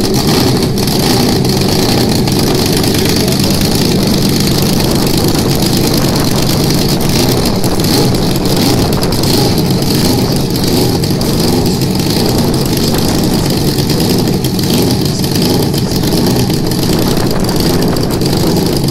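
Drag-racing motorcycle engines idling steadily and loudly.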